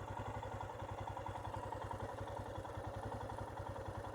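Royal Enfield Himalayan's single-cylinder engine idling steadily, an even pulse of about a dozen beats a second.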